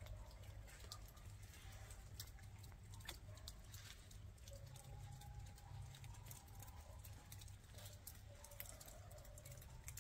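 Faint footsteps crunching in fresh snow: soft, irregular clicks over a low hum.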